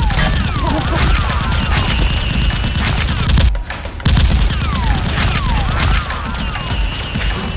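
Movie-style automatic gunfire sound effects laid over a toy-blaster fight: rapid shots over a heavy rumble, with repeated falling whistles. The firing breaks off briefly about three and a half seconds in, then resumes.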